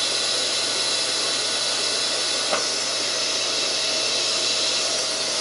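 Arc welder running steadily as a bead is laid on a joint of a square steel tube frame, a continuous hiss. One short click about two and a half seconds in.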